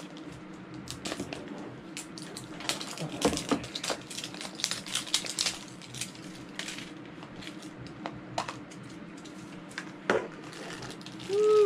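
Plastic wrapper crackling and crinkling as it is peeled off a plastic capsule toy ball, with scattered clicks. Near the end a sharp click as the capsule halves are pried apart.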